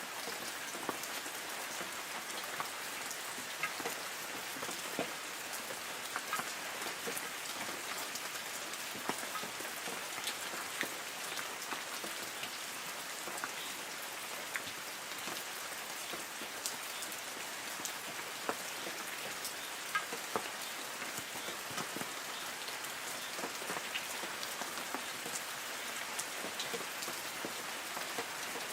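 Light rain falling on forest trees: a steady patter with many individual drops ticking on the leaves.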